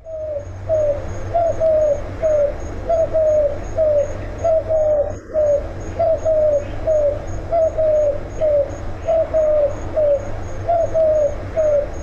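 Eurasian collared dove cooing: short low coos repeated in short phrases over and over, a monotonous song.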